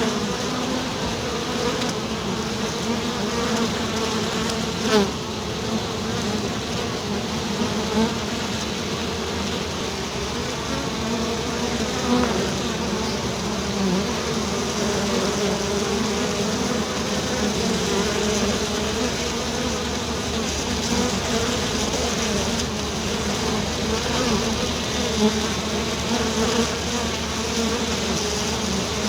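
A swarm of bees buzzing steadily, many wingbeats overlapping into one dense hum, with a brief tick about five seconds in.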